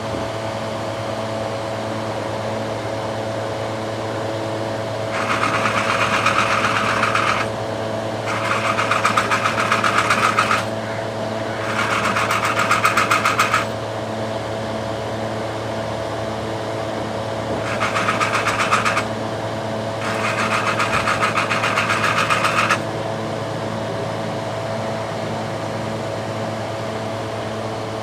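A steady mechanical hum, broken five times by loud buzzing hiss lasting one to three seconds each.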